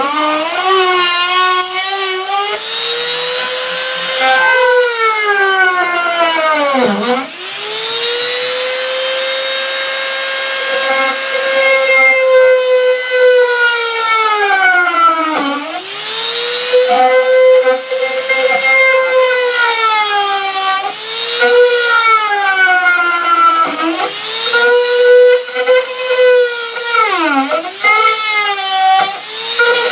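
Flex-shaft rotary tool whining as its bit cuts into a wooden board. The pitch wavers and sags, dropping sharply and recovering several times.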